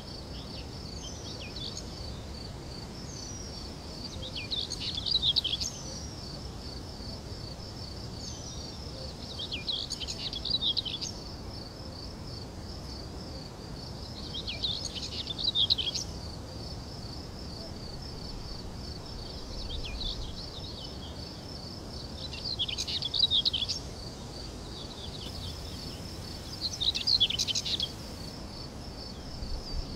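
A songbird sings short phrases about every five seconds over a steady, high-pitched pulsing trill of insects.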